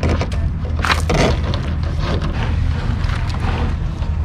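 Corrugated plastic RV sewer hose being pushed into its storage compartment, with a scraping rustle about a second in and lighter rustles after, over a steady low hum.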